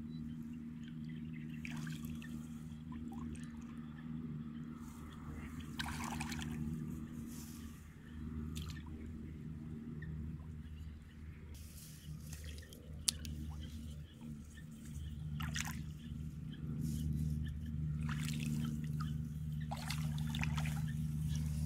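Shallow muddy water in a flooded rice paddy splashing and dripping in short bursts as hands move through it, over a steady low hum.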